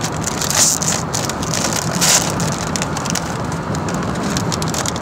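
Foil Takis chip bag crinkling and rustling as a hand digs into it, loudest about half a second and two seconds in, over the steady drone of road noise inside a moving car.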